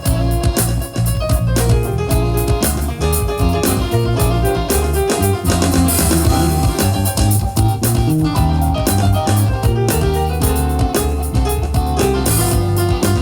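Music with a drum kit, guitar and keyboard over a strong, steady bass line.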